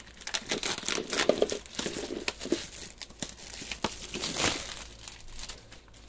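Plastic shrink-wrap crinkling and tearing as a sealed gift bundle box is unwrapped, with dense crackling and one louder rip a little past the middle.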